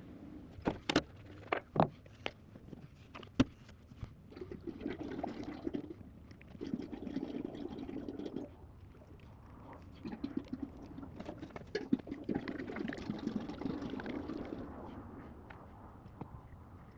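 Hydraulic fluid pouring from a jug into the Cat 312 excavator's hydraulic tank, in uneven spells for about ten seconds, after a few sharp knocks in the first seconds.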